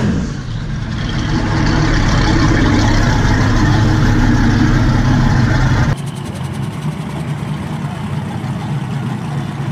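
Drag race car engine running loud and steady for about six seconds, then an abrupt cut to a quieter engine idling.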